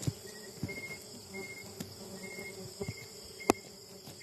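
Insects chirping, short high chirps repeating roughly every half second over a steady insect hum. A few knocks break in, the sharpest about three and a half seconds in.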